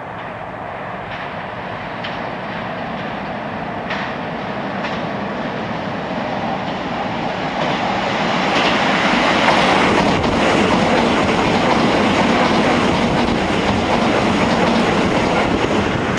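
Keisei 3700-series electric train passing through a station without stopping, its wheels clacking over the rail joints. The sound builds as the train approaches and is loudest over the second half as it runs past.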